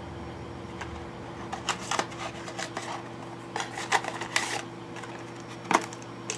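Small cosmetic packaging being handled and opened: scattered light clicks and a brief rustle, with one sharper click near the end, over a faint steady hum.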